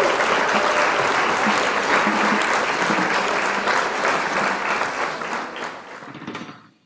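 Applause, fading out about six seconds in.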